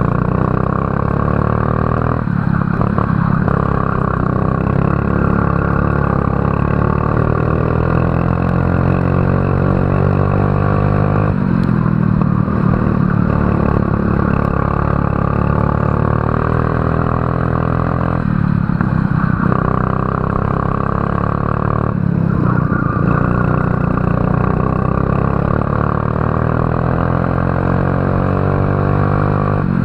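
Racing kart engine heard onboard at full throttle, its pitch climbing along the straights and dropping sharply as it comes off the throttle for corners, about four times.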